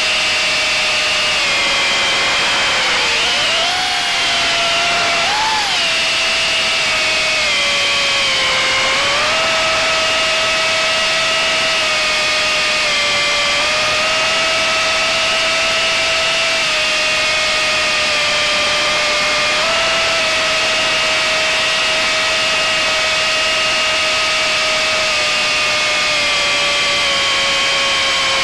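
Small FPV quadcopter's brushless motors and propellers whining, heard from the drone's own onboard camera. The high whine dips and rises a few times in the first ten seconds as the throttle changes, then holds nearly steady with small shifts in pitch.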